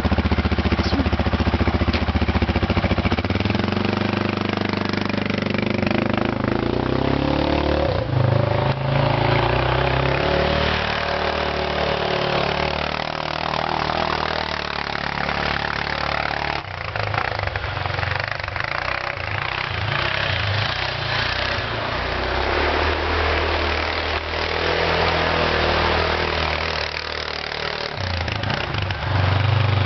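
Arctic Cat ATV engine running and revving up and down as the quad is driven and drifted through snow. The engine pitch rises and falls repeatedly, loudest in the first few seconds.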